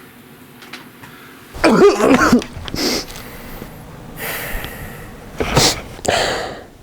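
A person coughing repeatedly: a loud, throaty cough about a second and a half in, a shorter one after it, a drawn-out breathy stretch, then two more coughs near the end.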